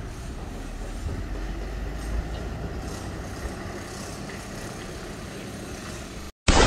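A large bus driving away, its engine and tyres making a steady low rumble that grows slightly fainter as it recedes. The sound cuts off shortly before the end.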